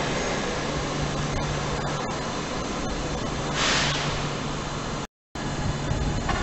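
Passenger train coaches rolling away along the track: a steady rumble with a low hum that slowly fades, and a short hiss a little past halfway. Near the end the sound cuts out for a moment and comes back as station background noise.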